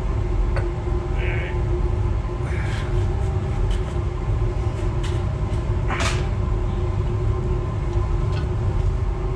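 Metal parts and tools clinking and scraping during work under a car, over a steady low mechanical drone. The sharpest clink comes about six seconds in.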